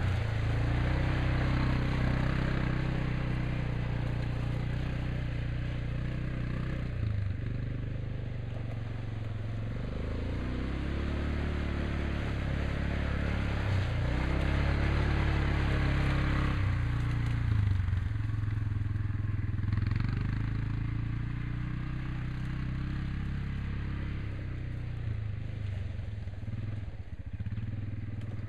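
Yamaha Kodiak 4x4 ATV engine running while being driven, the throttle easing off and opening again several times so the engine note dips and climbs.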